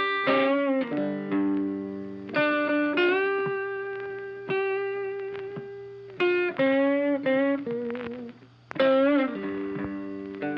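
Background music: a guitar playing single plucked notes, some bent or slid in pitch, in a slow riff.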